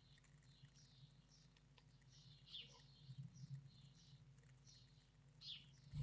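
Faint, short, high chirps from great tit nestlings in a nest box, about two a second, over a low steady hum. Right at the end the chicks break into loud begging as a parent arrives at the entrance hole.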